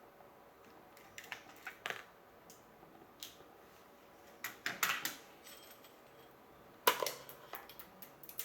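Small metallic clicks and clatter of the parts and screws of a spring airsoft Mosin Nagant rifle being handled during disassembly, with a cluster of rattles near the middle and one sharper click about seven seconds in.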